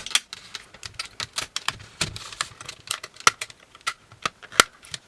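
Plastic clicking and cracking as a router's front button piece, held by heat-staked plastic flexures, is worked loose and snapped off by hand. It is a string of irregular sharp clicks, the loudest near the end.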